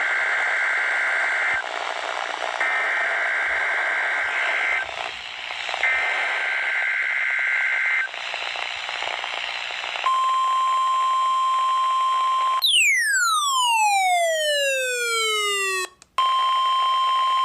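NOAA Weather Radio alert signal over radio static. It opens with three short bursts of data tones, the SAME header, followed by a couple of seconds of static. Then the steady 1050 Hz warning alarm tone sounds and, after about two and a half seconds, gives way to a tone sliding steeply down in pitch; after a brief dropout the steady alarm tone starts again near the end.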